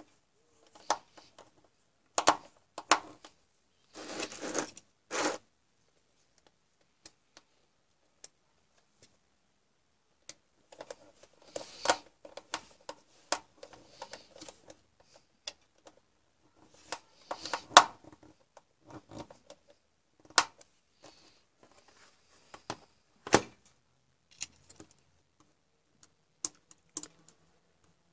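Hands handling and pressing on the plastic back casing of an HP df770 digital photo frame, with a small screwdriver. There are scattered sharp plastic clicks and knocks and short scraping rustles, in irregular clusters.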